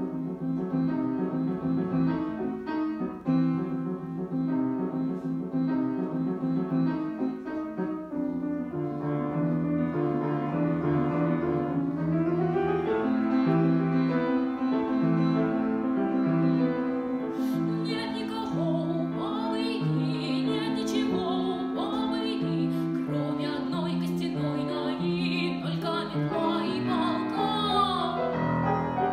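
Grand piano playing a song introduction and accompaniment; a girl's solo singing voice comes in partway through, its held notes wavering with vibrato.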